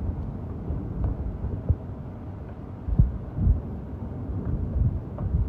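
Storm wind buffeting the phone's microphone during a rainstorm: a steady low rumble with sudden gusts, the strongest about three seconds in.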